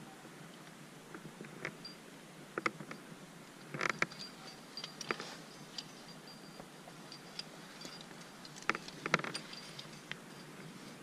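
Climbing rack gear clinking: aluminium carabiners and protection on a harness jingling and clicking together as the climber moves, in scattered light clicks with denser jangling clusters about four and nine seconds in.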